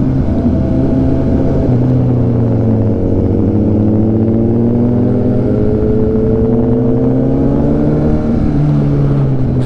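Kawasaki Ninja 1000SX inline-four engine running under way, heard from the rider's seat; its pitch dips as the bike slows, then climbs slowly as it picks up speed again.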